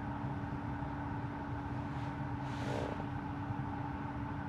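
Steady hum and hiss inside the cabin of a stationary Tesla, with a brief rustle about two and a half seconds in.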